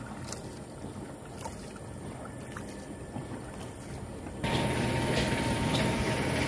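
A small wooden canoe being paddled in quiet water, with a few faint knocks. About four seconds in, the sound changes abruptly to a louder, steady hum and rush, typical of the paddy field's irrigation pump motor running and discharging water.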